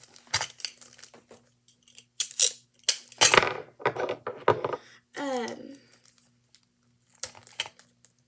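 Clear Scotch tape being pulled off the roll in several rasping strips and torn, with a plastic zip bag crinkling as it is taped shut.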